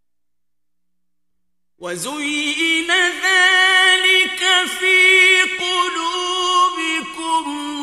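Male Quran reciter chanting in the mujawwad style. After about two seconds of silence he begins a long, high held phrase with vibrato, ornamental turns and brief dips in pitch.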